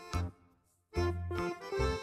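Background music with a plain bass line under keyboard-like notes; it cuts out for about half a second shortly after the start, then picks up again.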